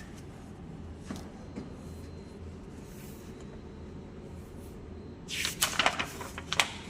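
Handling noise from AED pads and their plastic packaging: a few faint clicks, then about a second and a half of loud crackling and rustling starting about five seconds in.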